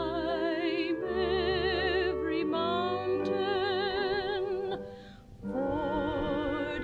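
Operatic singing with wide vibrato on long held notes, over low sustained accompaniment, breaking briefly between phrases about five seconds in.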